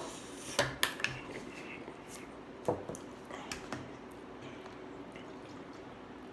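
Metal fork clicking and scraping against a glass plate several times in the first few seconds as noodles are eaten. This is followed by a quieter stretch of milk being poured from a plastic jug into a glass.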